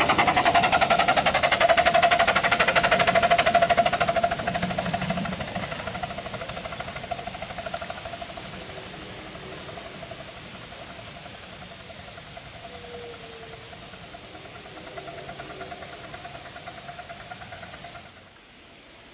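Miniature ride-on railway train running past on its track and moving away: a rapid metallic clatter of wheels on the rails with a steady high tone, loud for the first few seconds and then fading into the distance.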